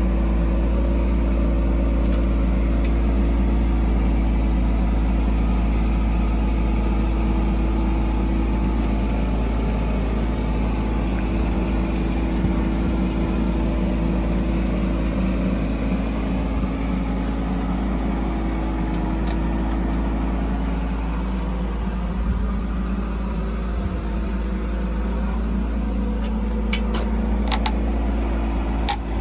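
Micro excavator's diesel engine running steadily as the machine tracks slowly along, a little quieter after about ten seconds, with a few sharp knocks near the end.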